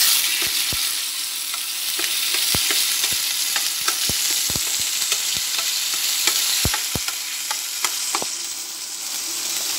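Ginger-garlic paste sizzling in hot oil in a stainless steel kadai as it is sautéed, a steady hiss, with a spoon scraping and knocking against the pan in irregular clicks as it is stirred.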